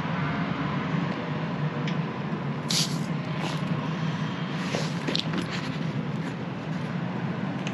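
Steady hum of passing street traffic, with a few brief rustling sounds about three seconds in and again around five seconds.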